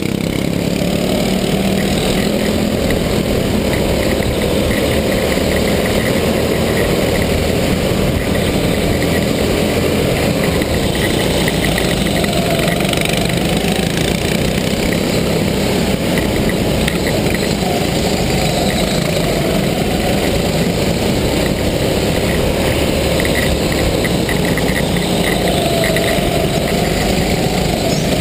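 Go-kart driving at speed, heard from a camera on the driver's helmet: a loud, steady motor noise that rises and falls slightly in pitch now and then.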